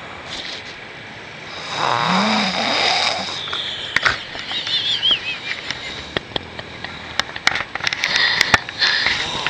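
A sleeping person snoring: a loud rasping snore about two seconds in, then a high wavering whistle a couple of seconds later, and more snoring breaths near the end.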